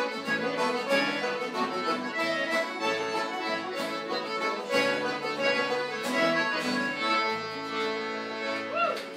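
Live traditional session music: a lively tune played on melody instruments with quick, evenly spaced note changes, which seems to come to its end right at the close.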